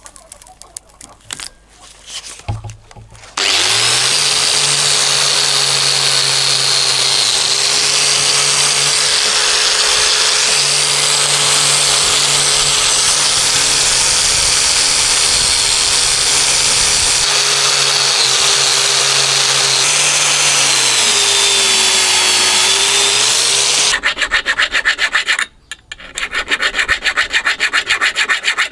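A few small clicks as a wire cup brush is threaded onto an angle grinder. The grinder then starts and runs steadily for about twenty seconds with the wire cup brush scrubbing rust off the steel pliers, its pitch sagging briefly under load before it shuts off. This is followed by quick back-and-forth strokes of a hand file across the pliers' jaw teeth.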